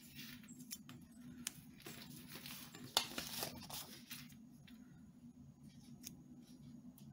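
Small desk handling noises of washi tape and planner paper: soft rustling and scraping with scattered light clicks, loudest about three seconds in.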